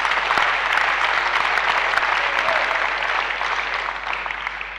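Spectators applauding at the end of a tennis point, a steady patter of many hands clapping that dies down toward the end.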